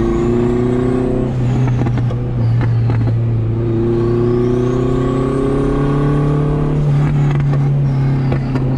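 Turbocharged H22A four-cylinder engine of a third-gen Honda Prelude accelerating hard, heard from inside the cabin: the revs climb, drop at a gear change about a second in, climb again and drop at another shift near the end. A high whine rises and falls with each pull, and a few sharp cracks come in the shift breaks.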